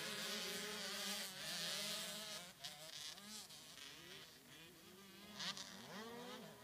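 Small two-stroke motocross bike engines heard from a distance: a thin, buzzing whine whose pitch rises and falls as the riders rev and shift.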